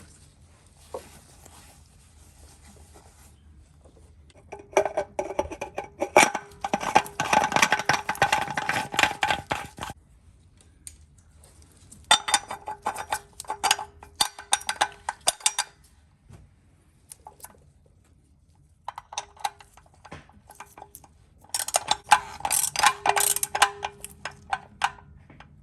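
Rapid metallic clicking from a ratchet wrench working a drain or filter-housing plug under a car, in three bouts of several seconds each.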